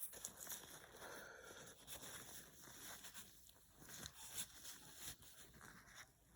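Faint, irregular scratching and rubbing with small clicks, as a dirty coin is scrubbed clean.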